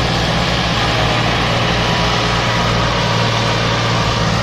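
Two Massey Ferguson diesel tractors, an MF 260 turbo hitched ahead of an MF 375, running together at a steady, loud pull under heavy load against a stuck sugarcane trolley. The MF 375's clutch plate has failed and its power is gone.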